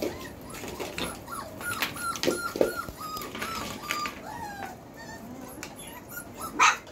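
A litter of four-week-old Belgian Malinois puppies whimpering and yipping: many short, high whines one after another, with one louder yelp near the end.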